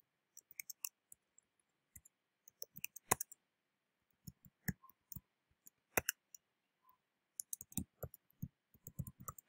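Computer keyboard keys clicking as code is typed: scattered single taps and short runs, coming quicker near the end.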